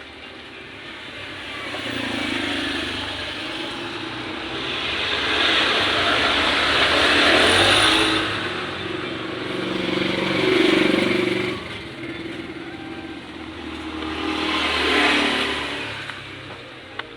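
Motor vehicles passing, their engine and road noise swelling and fading several times, loudest about halfway through, again around 11 seconds in and near 15 seconds.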